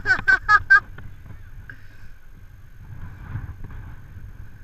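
A gull giving four quick calls in the first second, then wind rumbling on the microphone.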